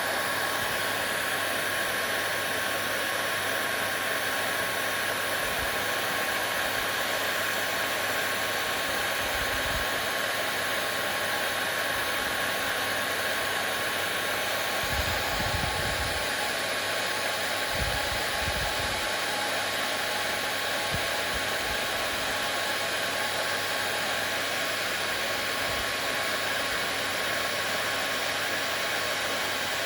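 Hair dryer running steadily: an even blowing hiss with a faint steady whine, used as soothing white noise for a baby.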